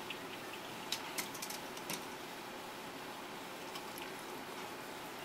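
A few light clicks as a plastic wash bottle and plastic staining jars are handled, over a steady low background hum.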